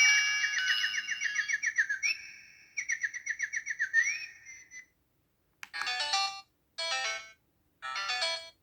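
Samsung SPH-A790 phone ringtones from its Yamaha SMAF synth chip. First a twittering tone of rapid falling chirps in two runs, which ends with a short rising glide and fades out about five seconds in. After a brief silence the next ringtone starts with three short bursts of chords.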